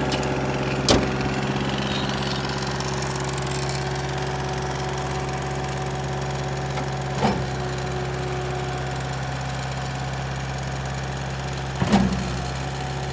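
Bobcat S185 skid steer's diesel engine running steadily at idle, a constant low hum. A few short sharp clicks or knocks stand out over it, about a second in, around seven seconds and near the end.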